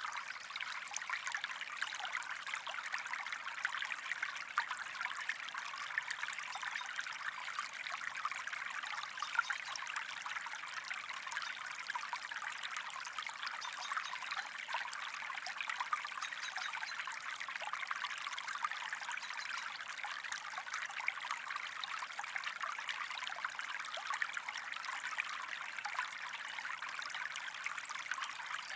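Steady white noise for sleep that sounds like running water, an even trickling rush with a fine crackle. It sits mostly in the middle and upper range, with little bass, and holds the same level without a break.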